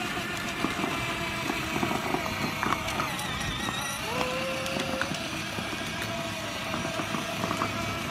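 Battery-powered children's ride-on car running: a steady electric motor whine with its hard plastic wheels rumbling and clicking over asphalt.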